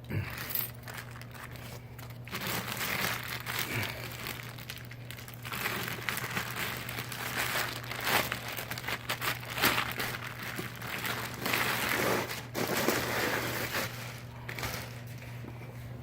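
Crinkling and rustling of plastic packaging in irregular spells, with small clicks, as a car amplifier is unwrapped and handled.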